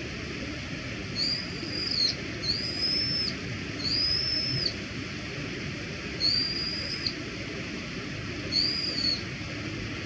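Brown-eared bulbul giving its everyday call: five high-pitched whistled notes, each just under a second long, rising briefly, held level, then dropping off at the end, spaced a second or two apart.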